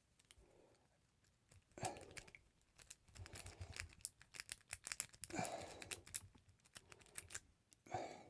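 Lock picks clicking and scraping in a Master Lock padlock being picked, with three louder knocks from the padlocks being handled: about two seconds in, about five seconds in, and near the end.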